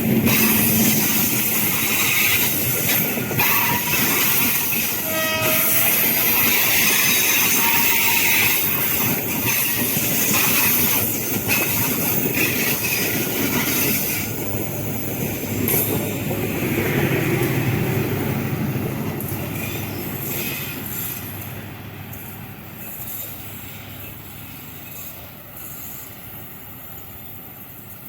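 A train passing close by, its wheels clattering over the rail joints, with a short high tone about five seconds in. The sound then fades steadily as the train moves away.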